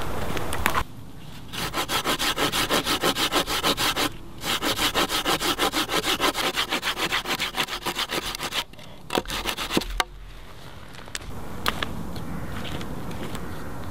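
Bahco Laplander folding saw cutting through a dry deadfall pine log in fast, even back-and-forth strokes, about four a second, in two runs with a brief pause between. The sawing is followed by a few sharp knocks.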